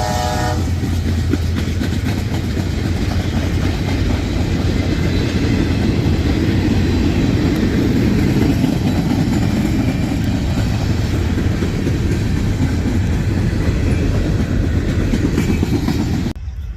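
A diesel locomotive horn sounding, which stops about half a second in. Then a freight train rolls past with a loud, steady rumble and clatter of wheels on rail. The sound cuts off abruptly near the end.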